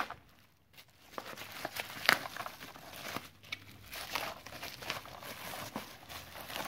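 Plastic bubble wrap crinkling and rustling as hands pull it off a toy's cardboard box, in irregular crackles with a sharper crack about two seconds in.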